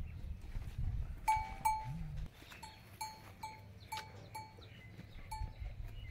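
Cattle bell clanking as a cow moves, about nine uneven metallic dings from a second in until about five seconds, over a low rumble.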